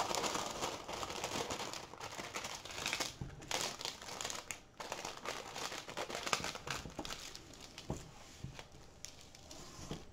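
Clear plastic cover film on a diamond painting canvas crinkling and rustling as it is lifted and smoothed down by hand, loudest near the start and on and off after.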